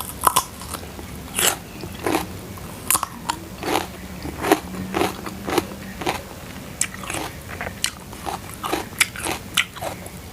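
Close-up biting and chewing of crunchy food, sharp irregular crunches about one or two a second.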